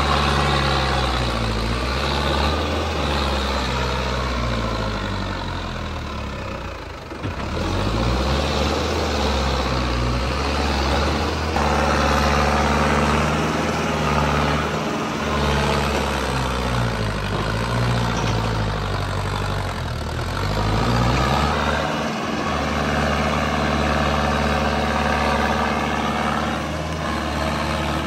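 Mahindra Arjun Novo 605 DI 4WD tractor's diesel engine working under load, hauling a trolley through deep mud, its speed rising and falling again and again. The sound dips briefly about seven seconds in.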